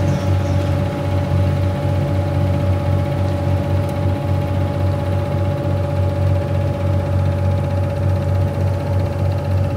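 River cruise boat's engine running steadily: a deep, even drone with a steady higher-pitched hum over it.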